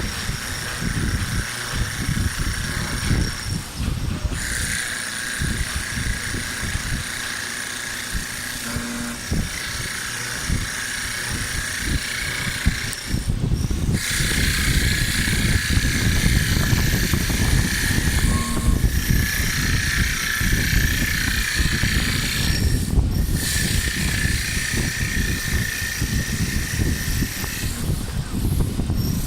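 Mini CNC wood lathe running: a steady motor whine over a rough low rumble. The whine breaks off briefly a few times.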